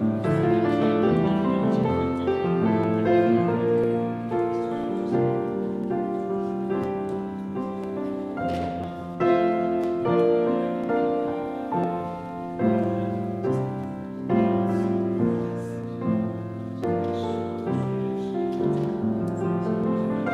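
Slow instrumental keyboard music: sustained notes and chords that change every second or so.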